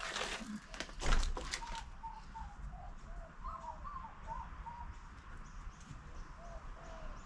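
Plastic bag rustling as small nuts and bolts are taken out, loudest about a second in, followed by birds calling with many short chirping notes.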